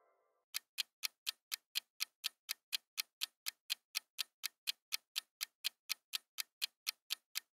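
Countdown-timer sound effect: a clock ticking evenly, about four ticks a second, starting about half a second in.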